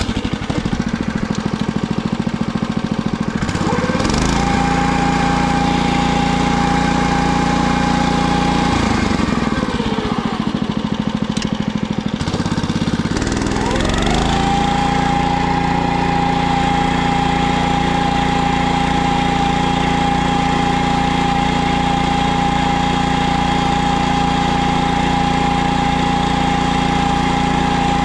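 Small petrol engine of a PermaGreen ride-on spreader-sprayer running steadily as the machine drives, with a high steady whine over it. Around ten seconds in the pitch dips and the whine drops out, then both rise back and settle as it runs in high gear.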